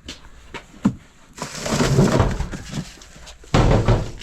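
Worn cardboard boxes being handled and pulled open, with rustling and scraping of cardboard and the things inside. A few light clicks come first, then a loud rustling spell about a second and a half in, and another sudden loud burst near the end.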